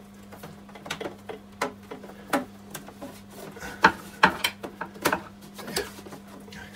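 Irregular clicks, taps and knocks of a screwdriver and a thick earth cable being handled against metal battery cases, loudest about four seconds in, over a steady low hum.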